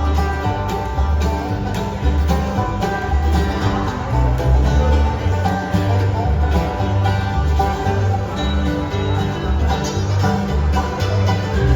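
Bluegrass band playing live, banjo and guitar prominent over a steady, regular beat of low bass notes.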